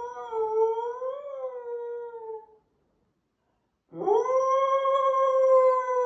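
A dog howling: a long howl that wavers up in pitch about a second in and breaks off after two and a half seconds. After a short pause, a second howl slides up in pitch and is held steady.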